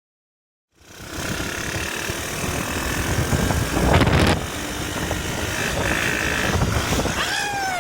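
Panther 125cc ATV engine running, with a louder burst about halfway through and a short falling whine near the end.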